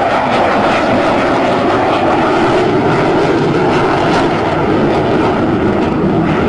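Fighter jet flying past, its jet engines making a loud, steady noise that holds evenly without a break.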